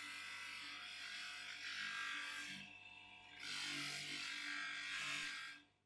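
Brass blowtorch valve fitting pressed against the spinning felt wheel of a bench polisher, giving a steady hissing whir. The sound eases off briefly about halfway through as the part is turned, then comes back and stops sharply near the end.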